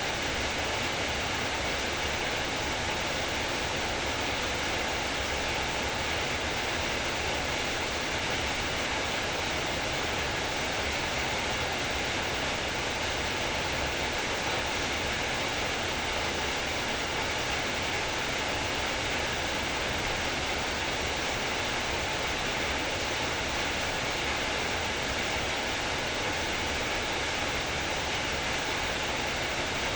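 Heavy rain falling, a steady, even wash of noise with no single drops, thunder or other events standing out.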